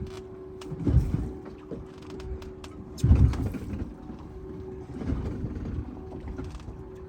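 Boat motor idling with a steady hum, under heavy low rushes that come every couple of seconds, the loudest about three seconds in, and scattered small clicks.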